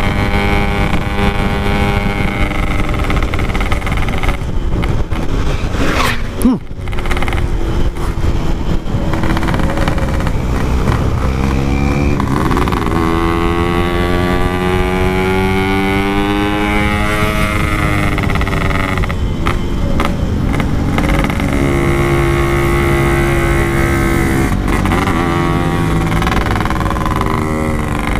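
Yamaha RX-King 135cc two-stroke motorcycle ridden along with its Packing Power exhaust, the engine note climbing and falling as it pulls through the gears, with short dips at the gear changes around six seconds in and again near twenty seconds.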